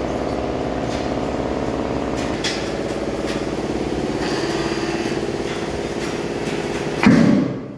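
An engine running steadily at idle. Near the end there is a brief louder burst, and then it drops away.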